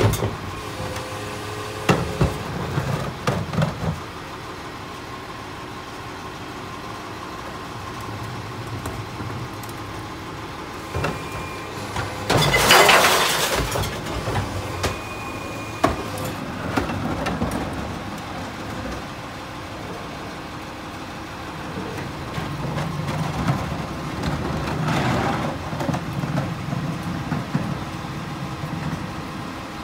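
Heil rear-loader garbage truck idling while recycling carts are tipped into its hopper, with knocks of the carts and clatter of bottles and cans falling in. The loudest moment is a rush of recyclables spilling out of a cart about 13 seconds in. Near the end the engine's low note grows louder for several seconds.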